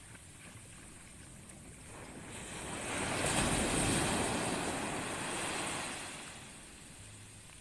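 Surf on a beach: a wave breaks and washes up the sand, swelling about two seconds in, loudest near the middle and fading away, over a low steady wash of the sea.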